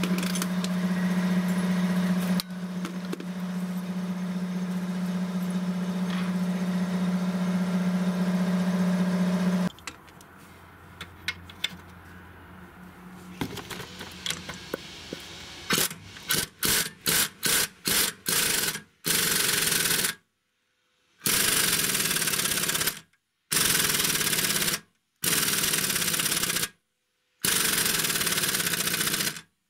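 Pneumatic impact wrench working a lower control arm bolt in a car's front suspension: a few short bursts, then repeated longer bursts of about two seconds each with pauses between, as the bolt refuses to come loose. A steady hum runs for the first ten seconds or so.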